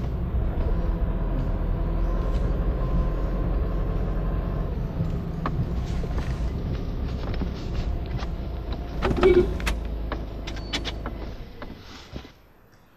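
Steady engine and road rumble heard inside the cabin of a moving Nissan, with a few clicks and knocks about nine to eleven seconds in. The rumble fades, then cuts off suddenly near the end.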